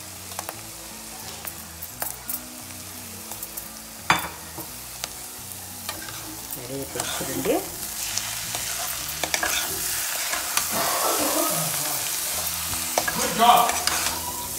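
Steel slotted spatula stirring and scraping ivy gourd and black-eyed pea curry around a pan while it sizzles. There is one sharp clink about four seconds in. The stirring and sizzling grow louder from about six seconds in, with scraping strokes strongest near the end.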